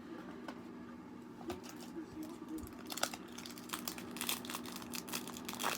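Foil trading-card pack wrapper crinkling as it is handled and opened. The crackling starts about a second and a half in and grows busier toward the end.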